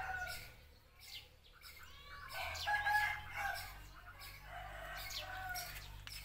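Roosters crowing, a long call about halfway through and another near the end, with small birds chirping.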